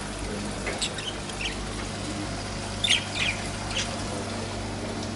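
Small cage birds chirping a few short, high calls, loudest in a quick cluster about three seconds in, over a steady low hum.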